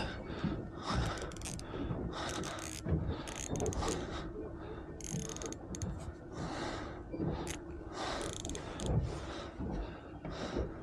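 Fishing reel being wound, its gears clicking in irregular spells.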